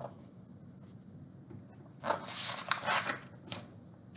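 Paper pages of a picture book rustling as they are turned, a short run of crisp rustles about two seconds in.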